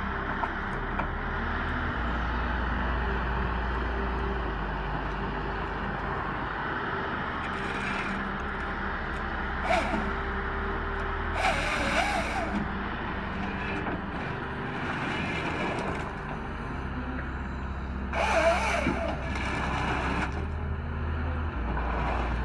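Heavy forestry machine's engine running steadily under load, with several brief, louder bursts of noise over it.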